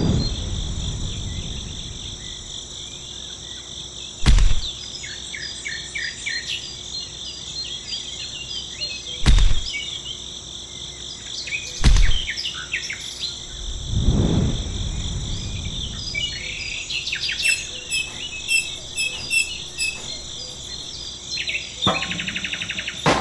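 Birds chirping over a steady high insect drone, broken by four dull thumps a few seconds apart and a quick rattle of clicks near the end.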